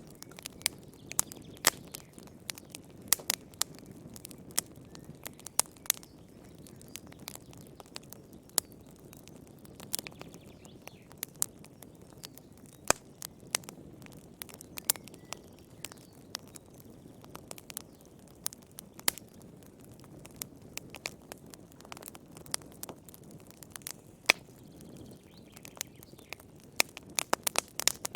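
Wood fire burning in a fireplace: irregular sharp crackles and pops over a soft low rumble of the flames.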